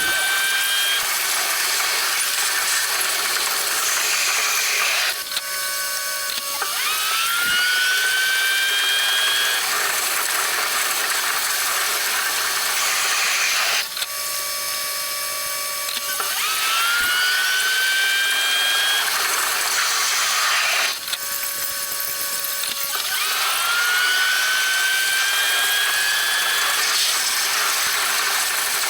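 A train running, with a whine that climbs in pitch and then levels off, four times about seven to eight seconds apart, with short stretches of steady tones between the climbs.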